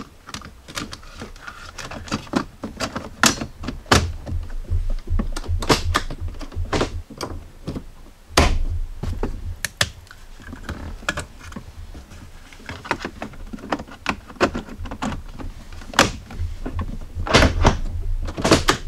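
Hard plastic shifter bezel trim panels being handled and pressed into the center console of a Jeep Cherokee XJ: irregular clicks, knocks and thumps of plastic on plastic, with a few louder snaps about eight seconds in and near the end.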